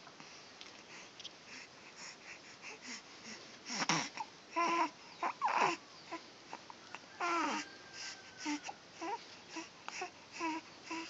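Newborn baby making a string of short vocal sounds, little squeaks and coos, with a louder cluster in the middle.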